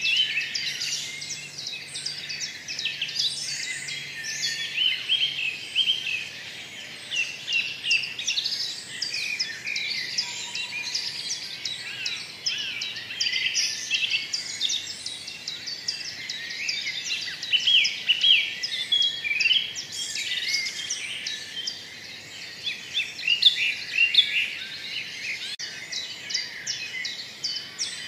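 Many small birds chirping at once in a dense, continuous chorus of short, high chirps.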